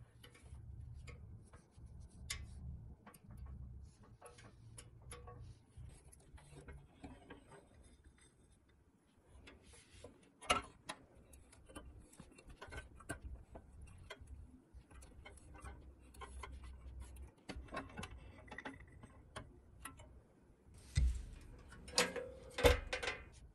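Small metallic clicks and ticks from hand tools working a screw clamp with a steel punch against a pressed-steel toy truck body. A few sharper knocks come near the end.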